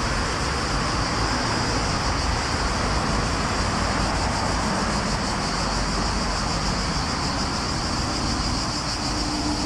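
Steady street traffic noise from passing cars, with a continuous high buzz over it.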